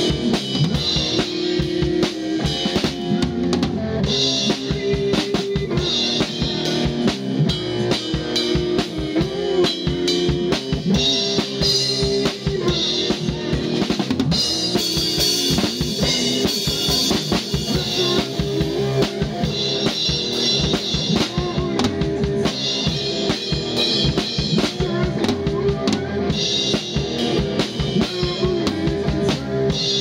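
Drum kit played hard in a hard-rock piece on a Malian-based rhythm: rapid kick, snare and rimshot hits, with crash and china cymbal washes coming in every few seconds, over held notes from the rest of the band.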